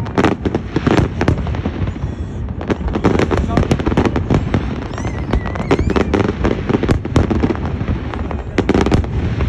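Fireworks bursting in rapid succession, a dense run of sharp bangs and crackles with several explosions only fractions of a second apart.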